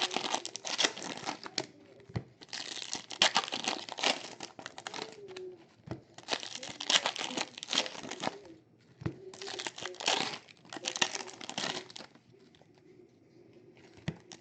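Foil trading-card pack wrappers crinkling and tearing as packs are handled and ripped open, in four bursts of a few seconds each, quieter near the end.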